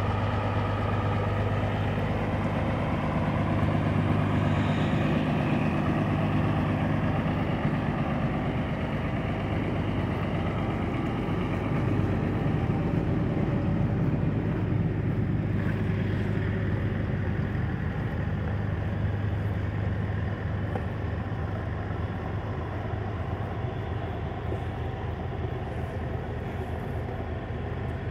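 Valmet 8150's 6.6-litre six-cylinder SisuDiesel engine idling steadily after a cold start.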